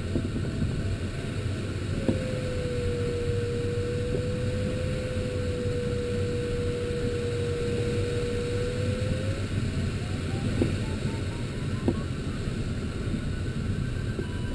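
Glider variometer's audio signal over steady cockpit airflow noise. It starts as spaced beeps falling in pitch, turns about two seconds in to a continuous lower tone, the sign of sinking air, and after about nine and a half seconds becomes spaced beeps rising in pitch again as the glider meets lift.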